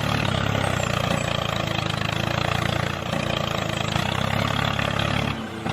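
A small engine running steadily at an even speed, briefly dropping out about five and a half seconds in.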